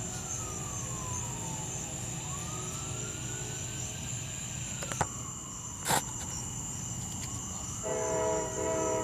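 An emergency vehicle siren wails in slow sweeps down and up in pitch, with a couple of sharp clicks around the middle. Near the end a train horn sounds a chord of several notes in two short blasts.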